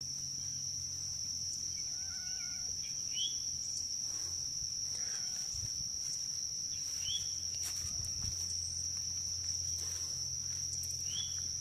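A steady high-pitched insect chorus drones throughout, with a few short bird chirps scattered through it.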